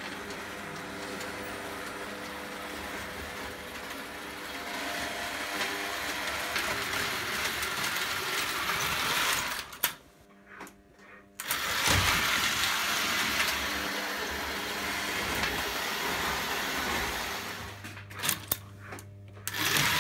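Lionel O gauge toy steam switcher's electric motor running along the three-rail track, a steady whirring gear whine with wheel noise. It drops away briefly twice, about ten seconds in and again near the end, before running on.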